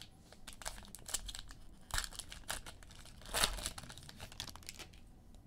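A trading card pack's wrapper being torn open and crinkled in the hands: irregular crackling bursts, the loudest about two seconds in and again a little past three seconds in.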